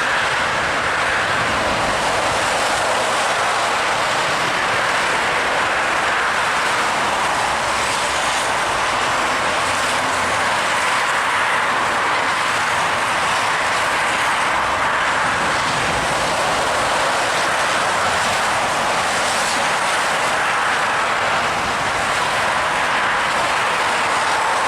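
Traffic on a main road driving through surface flood water: a steady rushing hiss of tyres spraying water, swelling slightly every few seconds as vehicles pass.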